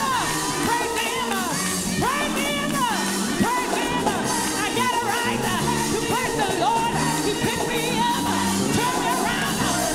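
Live gospel music: voices singing in sliding, ornamented lines over a band with a steady, stepping bass.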